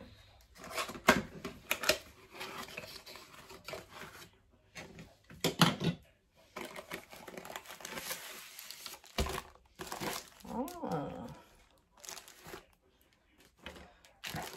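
A cardboard craft-kit box being opened and handled, and a plastic-wrapped rolled canvas pulled out of it: irregular rustling and handling noise in short bursts with brief pauses.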